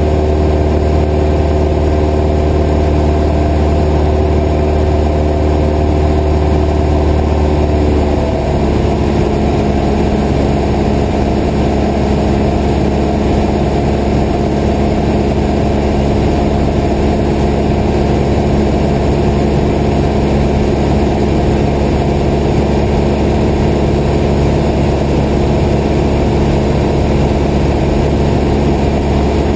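Piston engine and propeller of a light single-engine airplane droning steadily in flight, heard from the cockpit. About eight seconds in, the even engine note shifts slightly lower and turns rougher, then carries on steadily.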